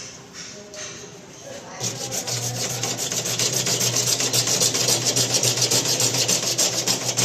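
A tool rasping steadily against the wall with a low steady hum underneath, getting louder about two seconds in. It is plausibly working at the plaster over the buried water line.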